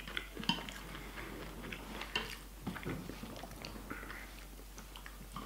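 A person chewing a mouthful of rice close to the microphone: wet mouth clicks and smacks at uneven intervals.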